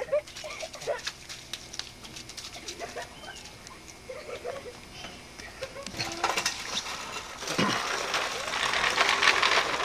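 Children's short, faint calls over splashing and spraying water, with many small clicks and splashes. The hissing water noise swells in the last few seconds.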